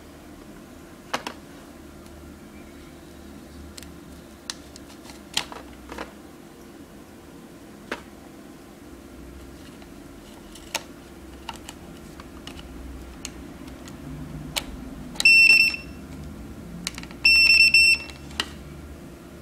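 Scattered clicks and knocks of USB plugs and cables being handled, then two loud high-pitched electronic beeps from the Hasar USB barcode scanner's beeper, a short one and then a longer, stuttering one near the end.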